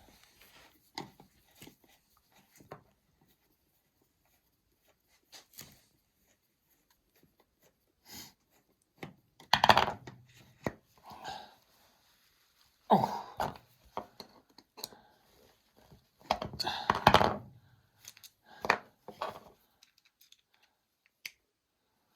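Irregular knocks, scrapes and rustling handling noises with quiet gaps between them, loudest in three short bursts about ten, thirteen and seventeen seconds in.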